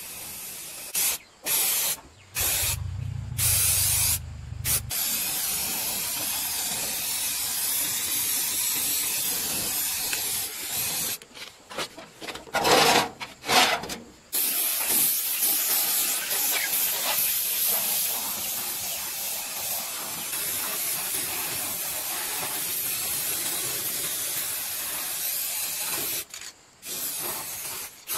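Aerosol spray paint can hissing in long bursts broken by short pauses, spraying paint onto the steel frame and grater disc of a cassava slicer.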